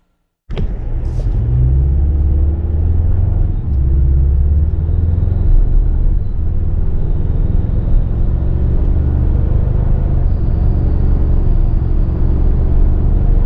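Interior drive noise of a 2024 Toyota Tacoma TRD Off-Road under way: its i-FORCE turbocharged four-cylinder engine running with tyre and road rumble. It is a steady low rumble that starts abruptly about half a second in.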